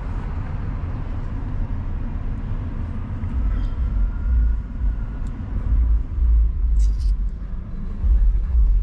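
Low rumble of a 2015 Mercedes-Benz S550 heard from inside the cabin as the car pulls away, growing heavier and uneven about three seconds in.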